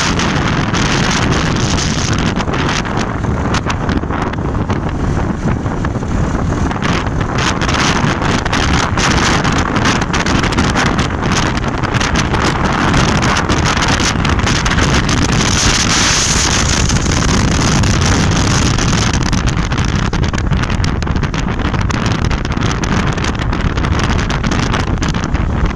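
Loud, steady wind buffeting on the microphone of a phone filming from a moving motorcycle at highway speed, over the rush of the ride.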